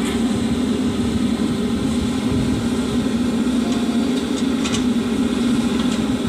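Diesel engine of a heavy construction machine, a backhoe loader or tipper truck, running steadily at an even speed with a low drone.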